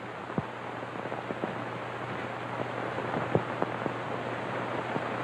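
Steady hiss with scattered crackles and pops over a low steady hum, slowly getting louder: the noise of an old 1950s television broadcast recording with no programme sound.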